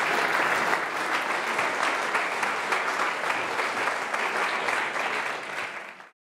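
Audience applauding, a dense steady patter of many hands clapping that dies down near the end and then cuts off abruptly.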